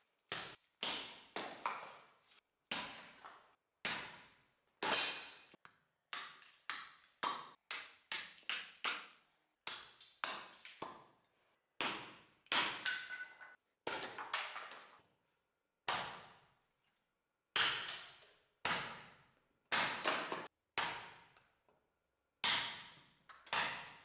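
A restored axe chopping thin sticks and branches on a wooden chopping block: a long run of sharp chops, one or two a second and quicker in spells, each dying away over about half a second.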